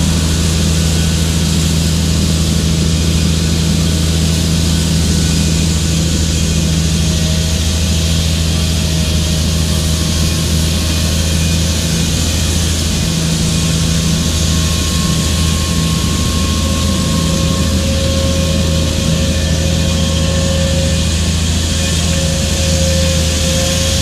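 Claas Xerion 3800 tractor running at a steady working load as it pulls a Lemken Karat 9 cultivator and seed drill through the soil: a constant low engine drone with a steady hiss over it.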